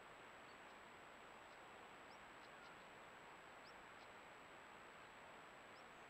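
Near silence: a steady faint outdoor hiss with a thin, constant high electronic whine, and faint short high chirps from a distant small bird every second or two.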